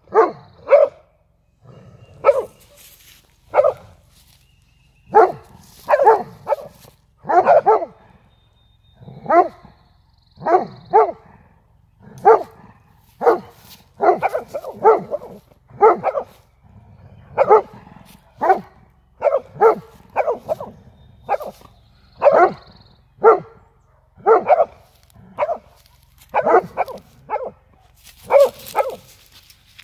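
Golden retrievers barking at a cow, in short barks that come singly or in quick runs of two or three, about every second or two.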